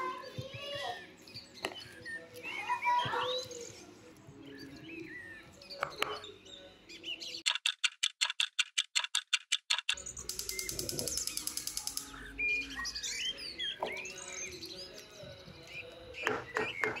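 Small birds chirping and twittering. About seven and a half seconds in, a fast clock-like ticking of about eight ticks a second starts, followed by a high rattling ring for about two seconds. Then the chirping returns, and the ticking starts again near the end.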